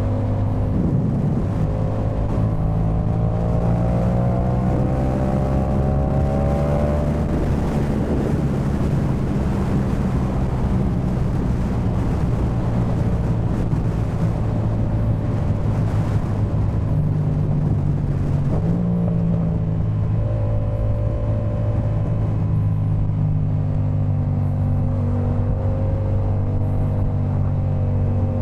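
Yamaha MT-07's 689 cc parallel-twin engine running through a Jeskap K4 full exhaust, heard from the rider's seat while riding. Its pitch rises gently over the first few seconds, holds fairly steady, then shifts briefly about two-thirds of the way through before steadying again.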